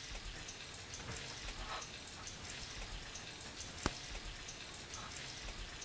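Flour-dredged chicken thighs frying in a little olive oil: a steady, quiet sizzle full of small pops and crackles, with one sharper click a little before four seconds in.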